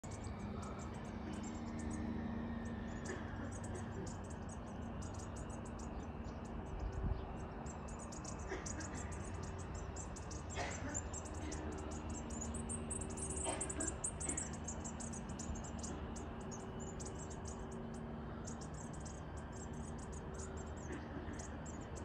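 Small songbirds chirping and twittering: a quick, unbroken stream of short, high chirps.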